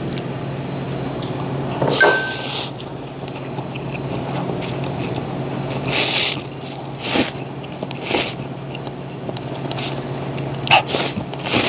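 A person loudly slurping thin noodles out of a bowl of soup, in a series of short slurps every second or two, with a cluster of quick slurps near the end.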